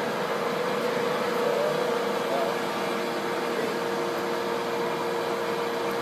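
Kingston hollow spindle engine lathe running at its lowest spindle speed, about 5 RPM: a steady machine hum with an even, constant tone.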